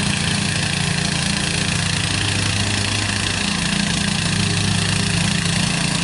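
Old Murray riding lawn mower's engine running steadily.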